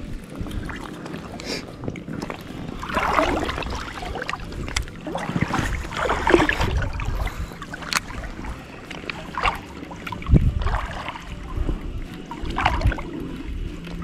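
Water sloshing and lapping against a float tube as it moves across a pond, coming in irregular surges every second or two.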